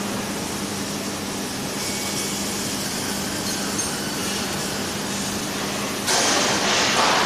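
Cylindrical grinding machine running on a test after repair: a steady mechanical hum with a steady low tone. About six seconds in, a louder hiss rises for about a second.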